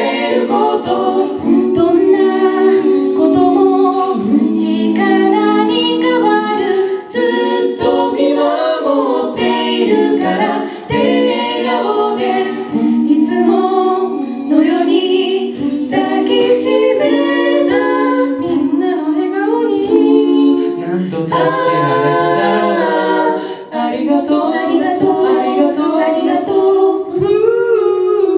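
A four-voice a cappella group of two men and two women singing in close harmony through microphones, several voice parts moving together with no instruments.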